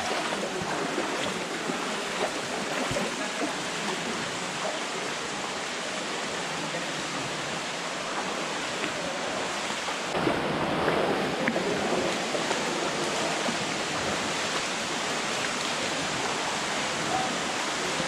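Steady rush of water from a waterfall and the shallow stream in a narrow rock gorge, growing a little louder about ten seconds in.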